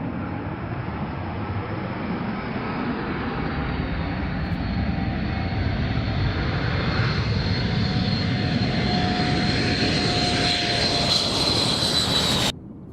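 Twin turbojet engines of a Sukhoi Su-24M strike jet: a loud steady rush with a high whine, growing louder over about ten seconds as the whine's pitch slowly drops, then cut off suddenly near the end.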